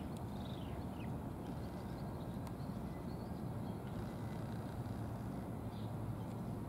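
Steady low outdoor rumble with a faint hum, and a few faint high chirps from birds about half a second in and again near the end.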